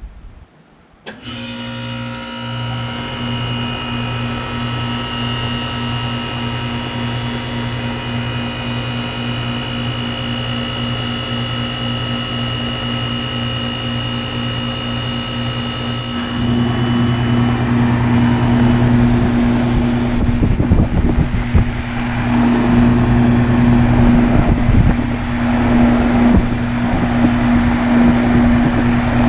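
Goodman GSH13 heat pump outdoor unit starting up: the compressor cuts in abruptly about a second in and settles into a steady electric hum with several fixed whining tones. About sixteen seconds in a louder, gusty rush of air joins the hum.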